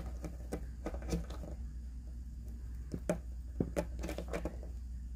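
Flathead screwdriver turning a metal cam-lock fitting set in a particleboard bookcase panel to tighten the joint: faint, irregular clicks and scrapes of the blade in the slot as the cam turns.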